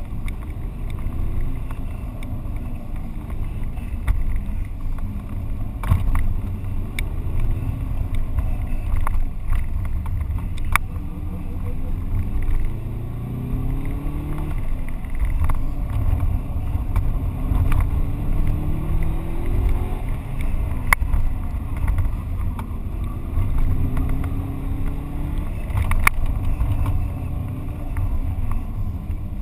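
Subaru Impreza GT's turbocharged flat-four, heard from inside the cabin, revving up through the gears and dropping back again and again during a flat-out run. Heavy low road rumble runs under it, with a few sharp knocks.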